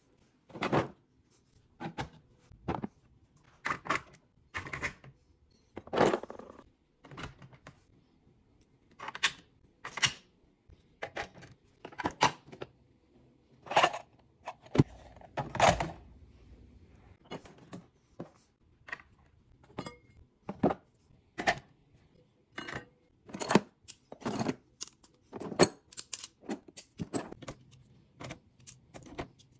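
3D-printed plastic accessories being clipped onto and set into a Milwaukee Packout toolbox stack: a long irregular run of separate hard clicks, clacks and knocks, about one a second.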